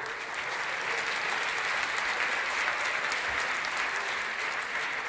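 Audience applauding, building in at the start, holding steady and thinning out near the end.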